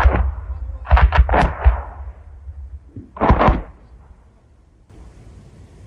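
Grad rocket salvo landing: a rapid string of explosions, three in quick succession about a second in and two more close together about three seconds in, then dying away to a low rumble.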